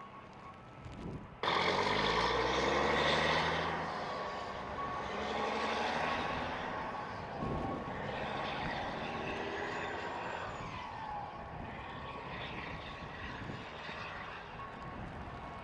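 A large vehicle's engine going by close, its pitch dropping over a couple of seconds, inside a steady rush of road and wind noise. It starts abruptly about a second and a half in.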